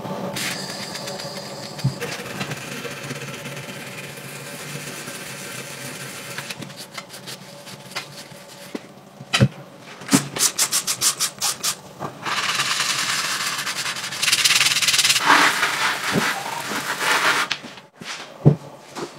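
A brass wire brush scrubbing rust off a small steel ball bearing. It runs as a steady scratchy hiss, breaks into quick, evenly spaced strokes of about six a second in the middle, then turns steady and louder again. A single knock comes near the end.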